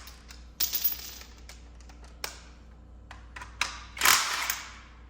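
Hand work on a steel car power seat rail: sharp metallic clicks and taps, with two short rasping bursts about a second in and near four seconds in, as mounts and bolts come off the rail.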